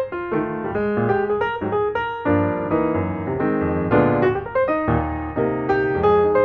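Piano music: a quick run of single notes and chords.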